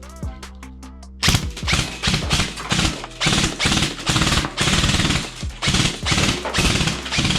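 Toy gun firing rapid repeated shots, two to three a second, starting about a second in, over background music.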